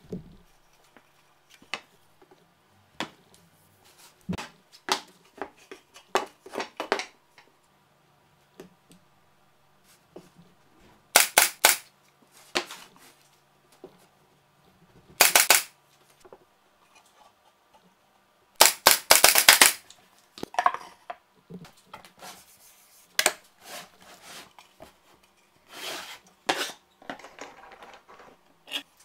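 Plywood parts being handled and fitted together on a workbench: scattered sharp wooden clacks and taps, with a few quick runs of knocks.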